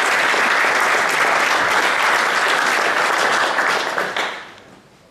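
Audience applauding, steady and loud, then dying away about four and a half seconds in.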